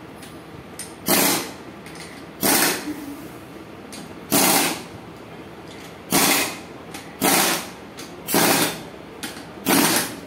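Pneumatic impact wrench hammering gearbox housing bolts tight in seven short bursts of about half a second each, with pauses of one to two seconds as it moves from bolt to bolt.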